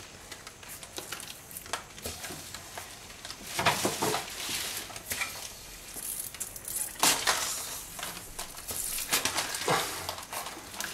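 Wet squelching, irregular clicks and short hissing bursts from an animatronic creature puppet head as its slime-coated mouthparts and mandibles are worked by cables and air bladders. The sounds grow busier partway through.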